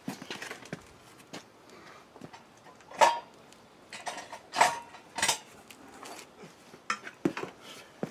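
Sharp metallic clanks and clinks as a truck's front brake rotor and hub are handled and picked up: the loudest about three seconds in, then several more spread over the next few seconds.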